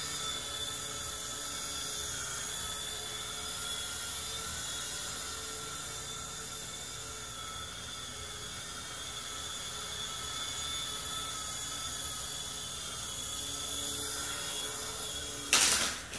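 Micro RC helicopter flying, its electric motors and rotors giving a steady high-pitched whine. Near the end there is a sudden loud clatter, and the whine stops.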